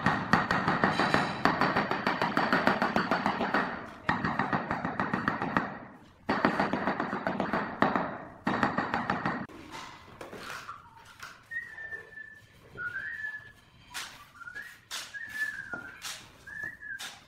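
Handheld tile vibrator buzzing while pressed onto a large ceramic floor tile to bed it into the mortar, running in three stretches that stop about four, six and nine and a half seconds in. After that come high short chirping whistles and a few sharp knocks.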